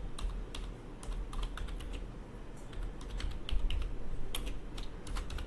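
Typing on a computer keyboard: irregular keystrokes, several a second, as a program is typed in.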